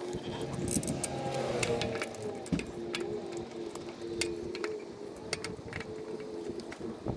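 Scattered light metallic clicks and taps as the replacement starter's mounting bolts are started by hand, over a low, wavering hum in the background.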